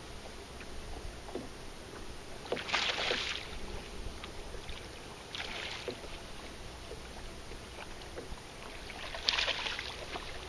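Small waves slapping against a bass boat's hull in three short splashes, about a second apart from each other's neighbours by a few seconds, over a steady low rumble.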